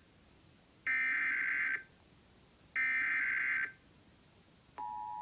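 Emergency Alert System SAME header: two bursts of digital data tones, each about a second long, about two seconds apart. Near the end the steady two-tone EAS attention signal begins, which announces the next alert.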